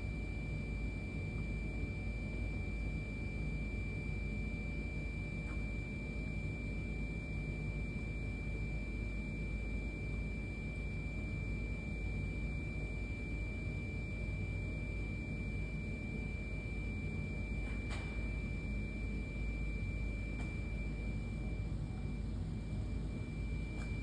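Small wiper drive motor in the sensor's process head running steadily while it retracts the wiper, a high, even whine over a low hum, with a few faint clicks.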